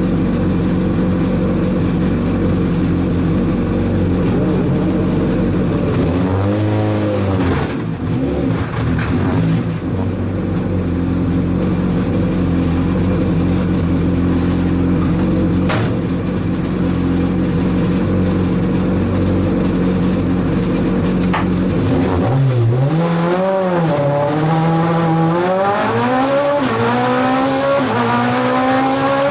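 Renault Clio Williams' 2.0-litre 16-valve four-cylinder engine idling, heard from inside the stripped cabin, with two brief rises and falls in revs about a quarter of the way in. Near the end it revs up for the start and the car pulls away, the engine note rising steadily under full acceleration.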